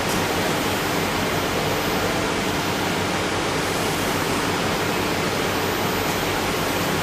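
PVC tarpaulin welding machine running: a steady rushing hiss with a faint low hum underneath.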